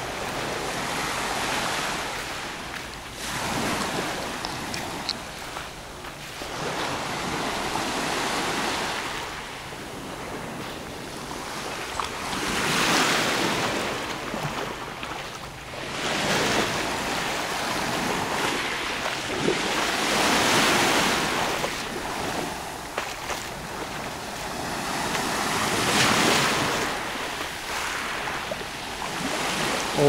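Small sea waves washing onto a pebble shore, swelling and falling away every few seconds.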